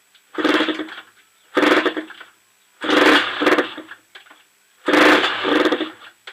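Honda CR85 two-stroke engine being kicked over four times, each kick giving about a second of engine noise before it falls quiet again: it is not staying running.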